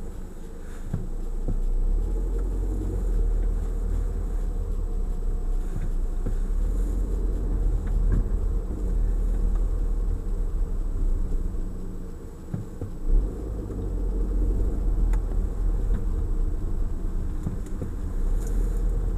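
Steady low rumble of an Audi A4 B9's cabin with the car running, from engine and road noise. No brake squeal is heard, and the noise dips briefly about two-thirds of the way in.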